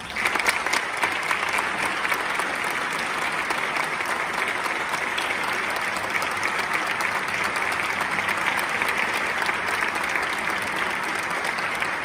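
Audience applauding: dense, steady clapping that breaks out suddenly and holds at an even level.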